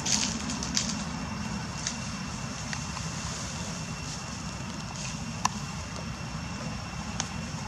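Outdoor ambience: a steady low rumble with a faint, steady high whine. Scattered small dry crackles and clicks sound through it, the sharpest about five and a half seconds in.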